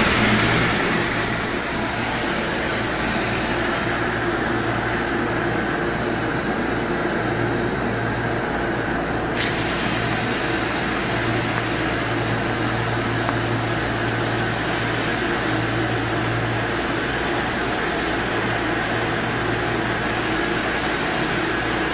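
Steady mechanical hum of the pumping machinery drawing water up the pipes of a well, with a constant low drone under an even hiss.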